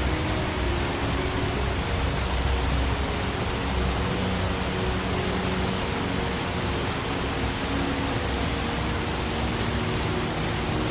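Forest stream running, a steady, even rush of water.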